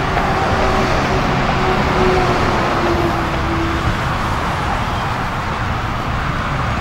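Steady noise of motorway traffic, with a faint, slightly rising engine tone from a passing vehicle over the first few seconds.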